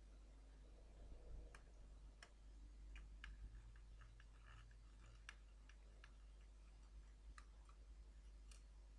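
Faint, scattered clicks and taps of small metal parts, the shields and the graphics-chip cooler, being handled and pressed into place on a laptop motherboard, over a steady low hum.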